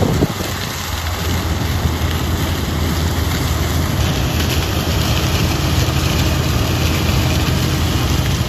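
Farm tractor engine running steadily with a low hum, heard from inside the cab.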